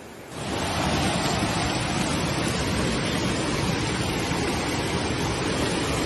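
Floodwater torrent rushing down a street: a loud, steady roar of water that starts abruptly about a third of a second in.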